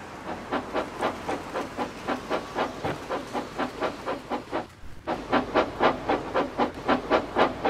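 Steam-locomotive chuffing: a steady run of rhythmic exhaust beats, about three to four a second. It breaks off briefly about five seconds in and then resumes louder.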